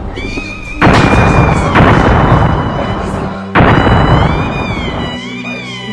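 Dubbed-in explosion sound effects: three sudden heavy booms, each dying away, over music with high sliding tones.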